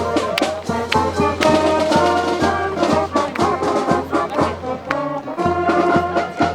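Brass band playing, with a steady drum beat under held brass notes.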